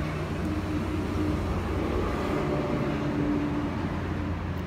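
A steady low mechanical hum with a faint pitched drone, a little louder through the middle.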